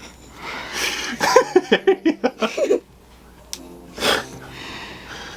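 A person's voice making brief, unclear vocal sounds about a second in, then a short, sharp breath-like noise about four seconds in.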